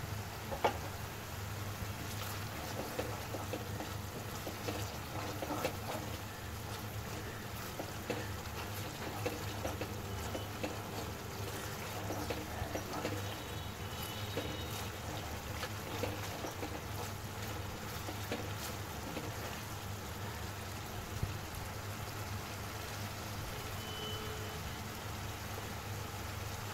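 Thick onion-tomato spice masala bubbling as it simmers in an aluminium pot, with scattered small pops over a steady low hum. The paste has been fried down until the oil rises to the top.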